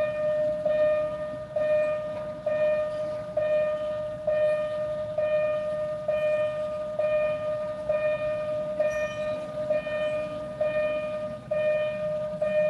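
Level-crossing warning signal sounding one steady electronic tone that pulses evenly about once a second, over the low rumble of an approaching diesel railcar train.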